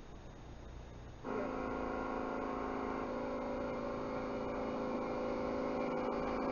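A steady, even hum of several pitches that starts suddenly about a second in, over faint hiss.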